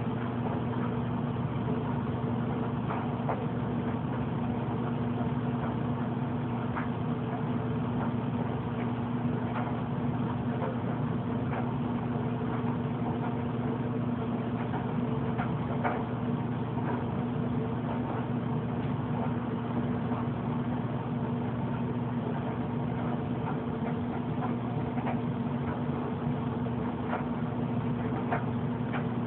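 Steady machine hum that holds one pitch and level throughout, with a few faint clicks scattered through it.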